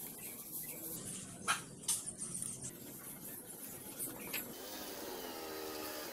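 Small metal clicks and taps as a tool works on parts of a Regnis sewing machine head, three sharp clicks standing out. Near the end a squeaky, wavering tone comes in.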